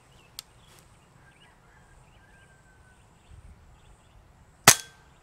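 One moderated shot from a Benjamin Marauder semi-automatic .22 regulated PCP air rifle fitted with an aftermarket moderator: a single sharp crack near the end with a brief ring-off. Most of the report comes from the hammer striking the valve rather than from the muzzle. There is a light click near the start and faint birdsong throughout.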